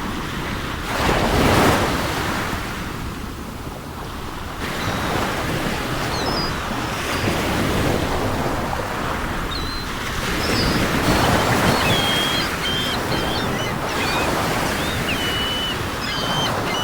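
Sea surf breaking and washing on the shore, swelling louder about a second in and again around eleven seconds. Gulls call faintly in short, thin, high cries from the middle on, more often near the end.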